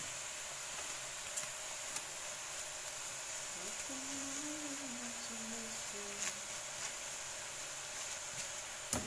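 Ground meat being tipped from a plastic basket into a pot of chopped vegetables, with a few light taps over a faint steady hiss. A person hums a short wavering phrase about four seconds in.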